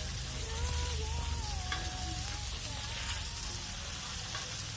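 Food sizzling and frying in a pan, a steady crackling hiss.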